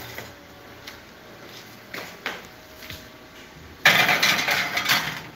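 A few light clicks, then about four seconds in a loud, rattling scrape lasting just over a second as the oven is opened and the cake pan is slid onto its metal rack.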